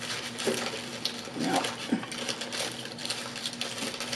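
Paper burger wrapper crinkling and rustling as it is handled and peeled back from the burger, a steady run of fine crackles.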